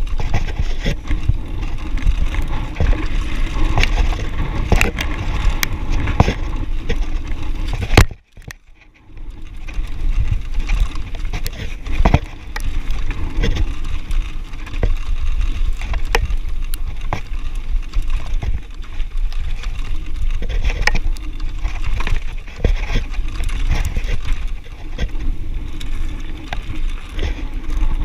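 Downhill mountain bike running fast over a loose gravel trail: tyres crunching on stones and the bike's chain and frame rattling with many small knocks, over a steady low rumble of wind on the microphone. About eight seconds in a loud knock is followed by about a second of near quiet before the rattling resumes.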